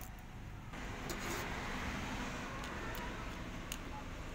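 A few faint metallic clicks of a screwdriver and small parts on the aluminium housing of an LPG gas-kit reducer, over a steady low background hum.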